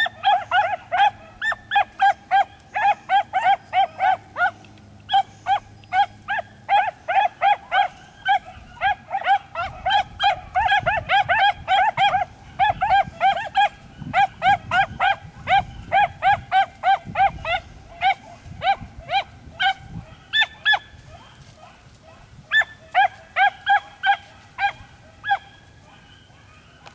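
A beagle baying in a fast, steady run of short, high barks, about three a second, with a couple of brief pauses. It is the chop-mouthed bark a hound gives when it is on a scent trail.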